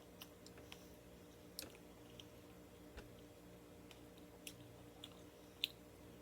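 Faint, irregular small clicks and ticks, about ten of them, over a low steady hum; the sharpest comes near the end.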